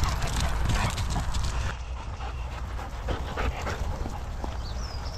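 Dog panting and snuffling close by, in quick irregular breaths.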